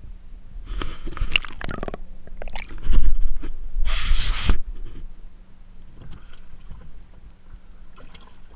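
Water splashing and sloshing in a boat's livewell where bass are kept, mixed with bumps and scraping from the camera being handled. The loudest part is a heavy rumble with a short splash-like hiss, about three to four and a half seconds in. After that it settles to faint sloshing.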